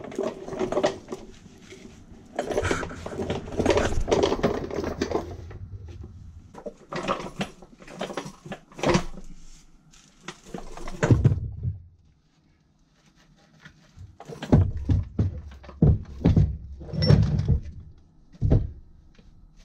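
Irregular knocks and thuds of a Nissan Leaf electric motor unit on a wooden dolly being moved and shifted into place under a car, with a low rumble for the first five seconds and a brief pause about twelve seconds in.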